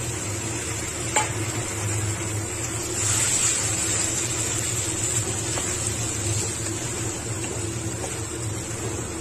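Soya chunks sizzling in tomato-onion masala in an iron kadhai while a spatula stirs them, with a single knock of the spatula about a second in. The sizzle grows a little louder about three seconds in, over a steady low hum.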